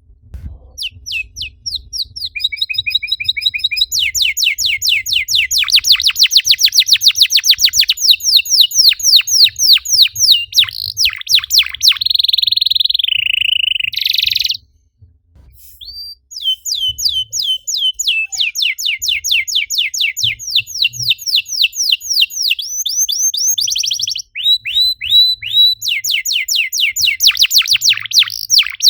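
Domestic canary singing a long song of fast rolling trills, each made of rapid falling notes, with a held whistle near the middle that cuts off suddenly, a short pause, then more rapid trills.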